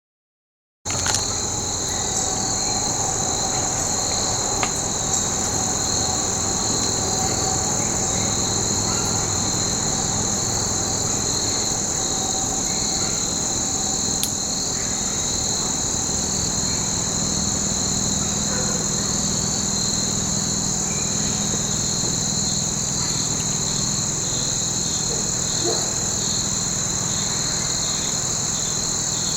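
Steady chorus of insects in the woods, a shrill, unbroken trilling at two high pitches; it cuts in suddenly about a second in.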